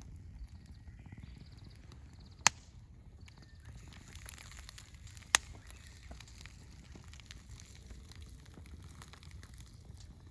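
Two sharp clicks or knocks, one about two and a half seconds in and another about three seconds later, over a faint low rumble with scattered small ticks.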